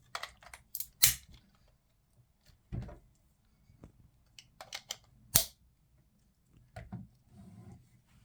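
Hard plastic parts of a Mattel Jurassic World Sound Surge T-Rex toy being handled and snapped on, legs and tail clicking into place: a scatter of sharp plastic clicks and knocks, the loudest about a second in and about five seconds in.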